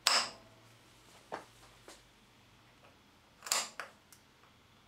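Spring-loaded centre punch snapping against the edge of a stripped screw head in a metal plate, its spring-driven hammer knocking the screw round to loosen it. Two sharp snaps, one at the start and one about three and a half seconds in, with fainter ticks of the punch being set back on the screw between them.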